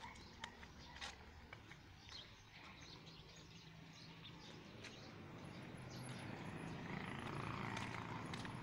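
Footsteps on a paved roadside, with faint bird chirps. A motor vehicle's engine hum grows louder from about halfway through.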